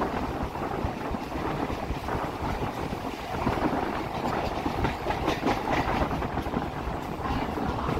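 MMTS suburban electric train running along the track: a steady rumble with scattered clicks and knocks from the wheels on the rails.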